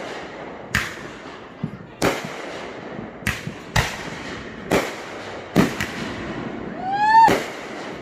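Aerial fireworks bursting overhead: a sharp bang about every second, each with an echoing tail. Near the end a rising whistle leads into the loudest bang.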